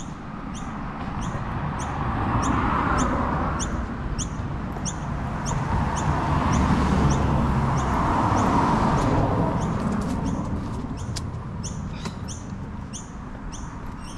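Road traffic passing, swelling and fading twice, with a high short chirp repeating steadily about twice a second throughout.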